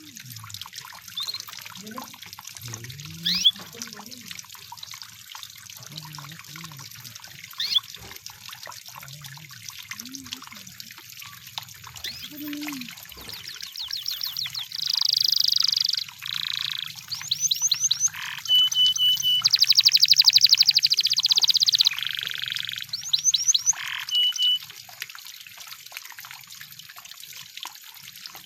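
Canary singing in the middle of the stretch: fast trills and rolls broken by short, clear whistled notes, loudest toward the end of the song, over a steady trickle of running water.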